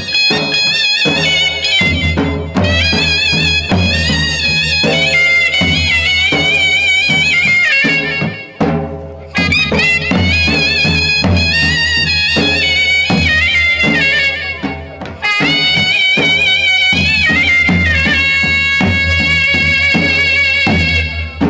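Gujarati folk raas music: a held, wavering high melody over a steady drum beat, dropping out briefly twice.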